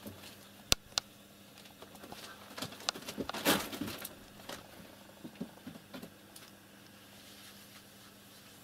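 Cats scrambling over a wood-and-cardboard box with a wire-mesh top: two sharp taps, then a burst of scratching and rustling about three and a half seconds in, followed by a few scattered knocks.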